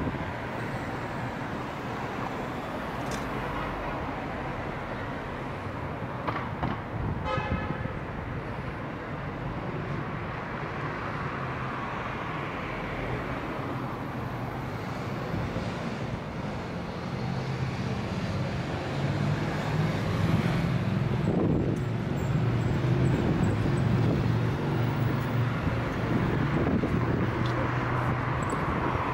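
City road traffic: cars and two-wheelers passing in a steady wash of tyre and engine noise, growing louder in the second half as more vehicles go by. A short toot sounds about seven seconds in.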